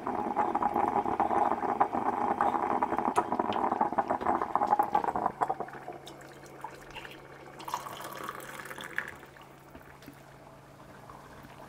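Liquid bubbling and spluttering on a gas hob for about five seconds, then stopping. After that, hot coffee is poured from a stovetop moka pot into a mug, its pitch rising as the mug fills.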